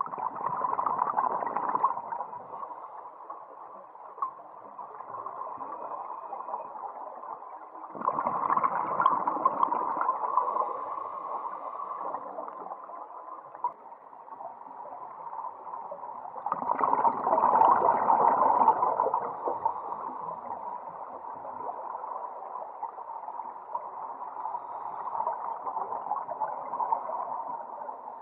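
Scuba diver breathing through a regulator underwater: three loud rushes of exhaled bubbles about eight seconds apart, with a steady lower hiss between them.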